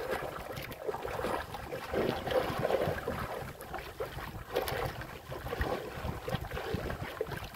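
Sea water splashing and lapping against the hull of a small outrigger boat, with irregular slaps and splashes, and wind buffeting the microphone.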